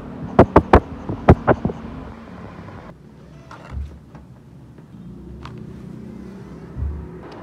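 A quick run of about seven sharp clicks in the first two seconds, then quieter handling of a spiral notebook on a desk, with two soft low thumps.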